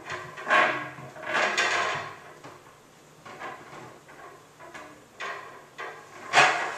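Hollow plastic sections of a Tower Garden being handled and slid onto the stack, rubbing and knocking against each other in a few separate scrapes, with the loudest knock near the end.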